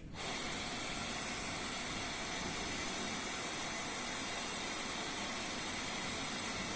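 Philips Trilogy EV300 ventilator running a circuit flush: a steady rush of air blowing through the breathing circuit. It starts abruptly and holds level as a constant hiss.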